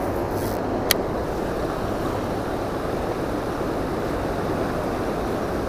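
Steady rush of water pouring over a low dam spillway and churning downstream, with one brief click about a second in.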